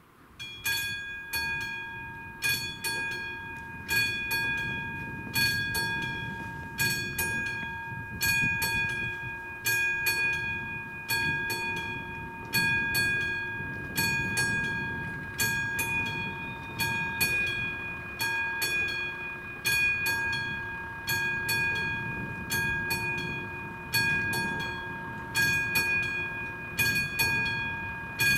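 Classic electromechanical level-crossing warning bell of an AŽD 71 crossing, ringing with a metallic stroke about every one and a half seconds. It starts suddenly as the crossing activates, warning that a train is approaching.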